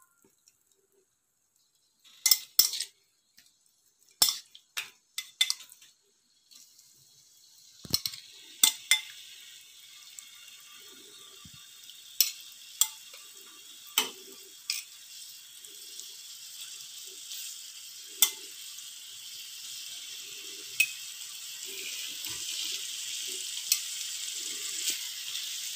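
Raw seasoned chicken breast fillets laid one by one onto a hot oiled grill plate. The sizzling starts about six seconds in and grows steadily louder. Sharp clicks of the metal tongs on the plate come throughout.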